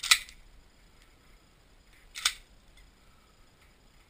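Two gunshots about two seconds apart, each a sharp crack with a short echo, the first the louder.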